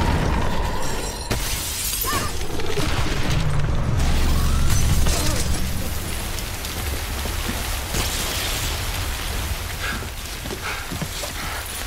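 Film earthquake sound effects: glass panes shattering and debris crashing over a deep rumble. The glass breaks loudest about a second and a half in, and the low rumble swells a few seconds later.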